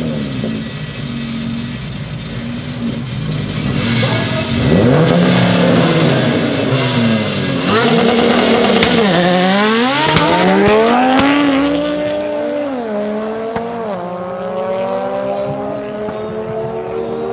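Two tuned drag cars, a Golf 7R running an Audi RS3 five-cylinder turbo engine and a turbo VTEC Civic, are revved on the start line. About halfway through they launch and accelerate hard. The engine pitch climbs and drops sharply at each gear change, and the sound turns duller as the cars pull away down the strip.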